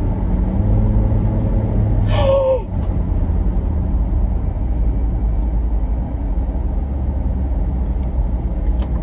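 Road and engine noise inside a moving car: a steady low rumble whose engine hum drops a little about two and a half seconds in. Just before the drop there is a short, falling vocal exclamation.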